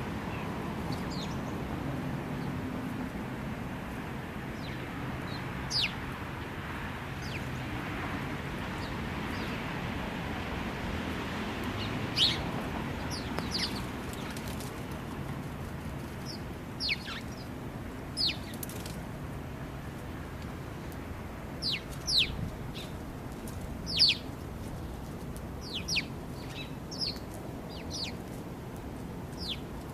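House sparrows chirping: scattered short, sharply falling chirps, growing more frequent in the second half, over a steady low background hum.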